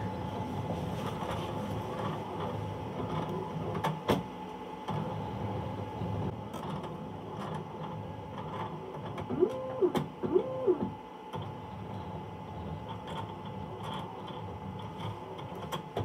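Lex optical lens edger running the measuring stage of its cycle, checking whether the clamped lens is big enough to be cut. It gives a steady mechanical hum with a sharp click about four seconds in, and two short motor whines about ten seconds in that rise, hold and drop back.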